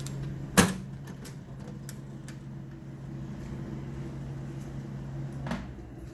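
Westinghouse WC-78-MD Coke vending machine humming steadily, with a sharp click about half a second in as its vend switch is pressed and another click about five seconds later, after which the hum drops a little.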